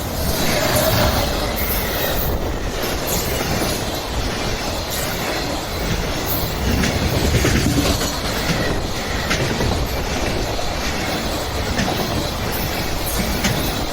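Train passing close by at a level crossing, its wheels clattering over the rail joints. The noise swells at the start and then stays loud and steady.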